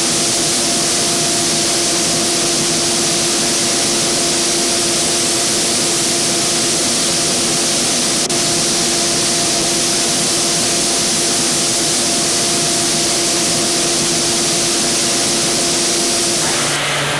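Industrial sanding machine running steadily: a loud, even abrasive hiss over a constant motor hum, with the sound changing just before the end.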